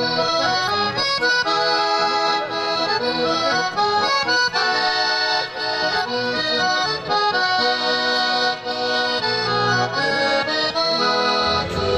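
A bayan, a chromatic button accordion, played solo: a tune of held, changing notes carried on the reeds over a low accompaniment.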